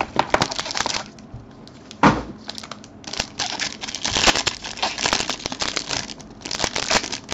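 Foil trading card pack crinkling and crackling as it is pulled from its box and handled, with one dull thump about two seconds in.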